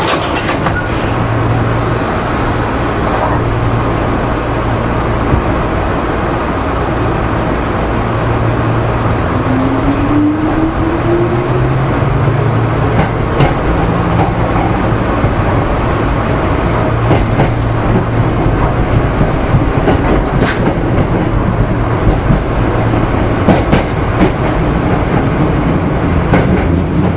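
Hankyu 3000 series electric train running on rail: a steady rumble and hum of the car, with a whine that rises in pitch about ten seconds in and a few sharp clicks from the track.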